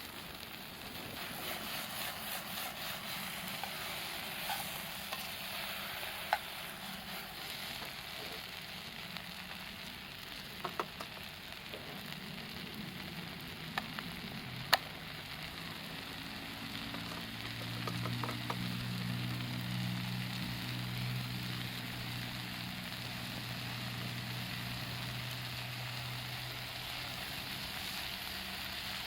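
Food sizzling in hot oil in a pan over a campfire: a continuous hiss with a few sharp clicks and taps. About halfway through, a low steady hum joins in.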